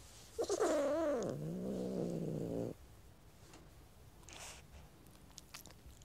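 Domestic cat growling: a wavering yowl starts about half a second in, sinks into a low, steady growl, and cuts off suddenly a little before the three-second mark. A faint breathy puff follows later.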